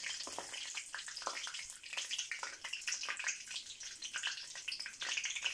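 Whole spices (cumin seeds, bay leaves, cinnamon, cardamom and cloves) sizzling in hot mustard oil in a kadai: a steady hiss with many small crackles and pops as the spices splutter in the tempering.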